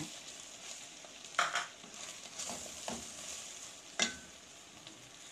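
Okra, potato and tomato sizzling in a steel pan with a steady hiss while a wooden spatula stirs them. The spatula scrapes the pan a few times, sharpest about a second and a half in and again at four seconds.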